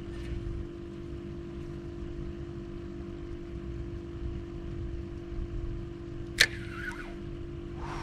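Steady low hum of a boat's motor with a low rumble underneath, and a single sharp click about six and a half seconds in.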